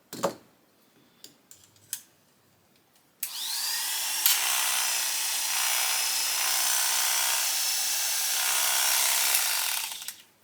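A few handling clicks, then an electric dog-grooming clipper with a sharpened Artero blade switches on about three seconds in, spinning up with a rising whine and running steadily for about seven seconds before switching off. The blade rattles as it runs, a rattle the sharpener suspects may come from the clipper rather than the blade.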